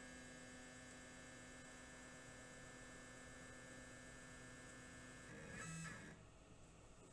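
The SHARK RS1000 Pro CNC router table's motorized fence drive gives a faint, steady whine as it slowly moves the fence in during automatic fence calibration. A little before the end the pitch changes and it gets briefly louder as the fence backs away after the touch plate contacts the bit, then it stops.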